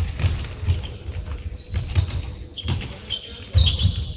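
Indoor futsal play in a large sports hall: the ball thudding off feet and the floor several times, with short high squeaks of shoes on the court and the hall's echo; the loudest thuds come about three and a half seconds in.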